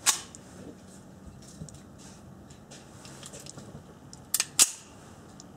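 A CZ-52 pistol being handled and fired or worked: one sharp click right at the start, then a quick cluster of three sharp cracks a little over four seconds in, the last the loudest.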